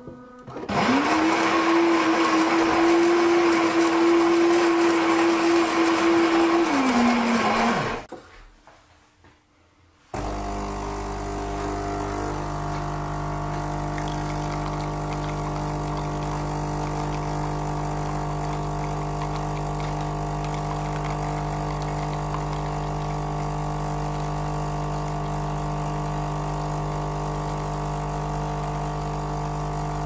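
Gaggia Brera super-automatic espresso machine grinding beans for about seven seconds, its grinder motor dropping in pitch just before it stops. After a pause of about two seconds, its pump starts humming steadily about ten seconds in as the espresso shot is brewed and pours.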